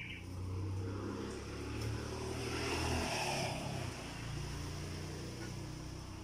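A motor vehicle's engine passing by on the road: it grows louder, peaks about three seconds in, then fades away.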